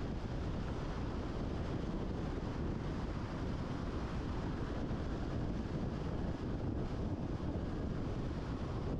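Steady road and wind noise of a car travelling at speed on a concrete highway: a constant low rumble with hiss above it, unchanging throughout.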